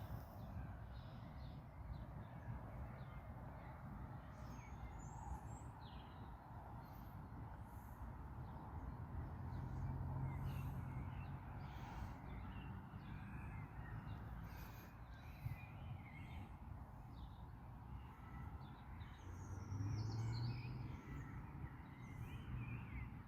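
Woodland ambience: a low, steady rumble of wind and distant road traffic that swells around ten and twenty seconds in, with scattered short bird calls over it.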